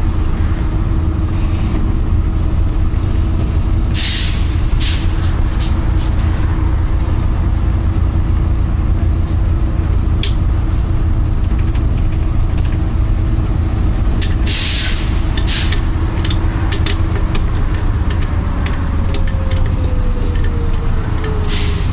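Volvo B9TL double-decker bus driving, its engine droning steadily inside the cabin, with two short bursts of air hiss, one about 4 seconds in and a longer one about 14 seconds in. This is the bus's "pshhh pshhh" air release, which comes every few seconds on this bus instead of the usual few minutes, with scattered light rattles and a falling whine near the end.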